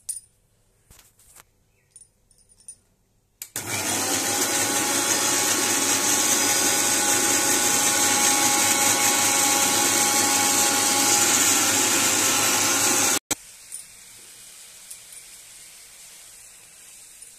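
A few handling clicks, then an electric mixer grinder spinning up and running loud and steady for about ten seconds, grinding onion, ginger, garlic and chilli into a paste. It cuts off suddenly, leaving a faint steady hiss.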